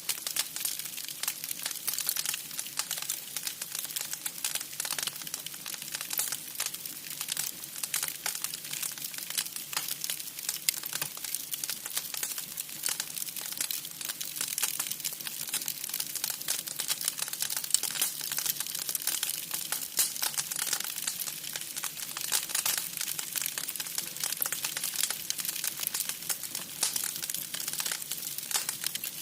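Firewood crackling as it burns in a homemade camping wood stove: a dense, irregular run of small snaps and pops over a soft hiss.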